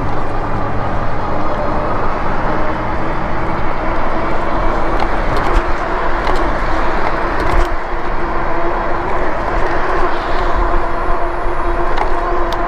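Riding noise of a Lectric XP e-bike: wind rushing over the chest-mounted camera's microphone, with a steady hum from the bike's motor and tyres that grows a little louder near the end.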